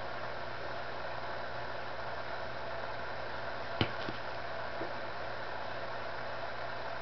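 Steady mechanical hum with several fixed tones in it, and one short click just before the middle.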